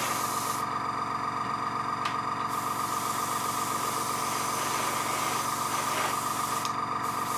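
Small airbrush compressor running with a steady hum, with the hiss of the airbrush spraying thinned paint. The hiss stops for about two seconds near the start and again for a moment near the end, while the compressor keeps running.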